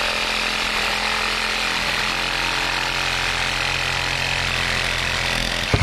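Cordless reciprocating saw with a short blade running steadily as it saws through thick grey PVC pipe. It stops abruptly near the end with a brief click.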